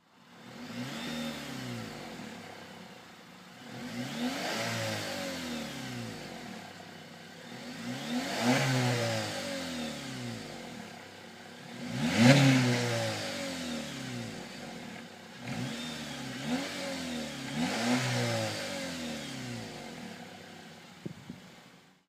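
2009 Honda Accord Coupe's four-cylinder engine, through its stock factory exhaust and a Takeda short ram intake, revved repeatedly while standing: about six blips, each climbing in pitch and falling back to idle, the loudest about halfway through.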